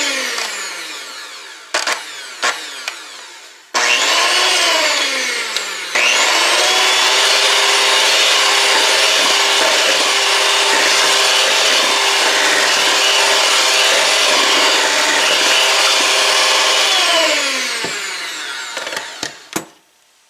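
Handheld electric mixer whining as its beaters whip cake batter in a metal bowl. It slows and picks up again a couple of times in the first six seconds with a few knocks, runs steadily for about eleven seconds, then winds down and stops near the end with a few sharp taps.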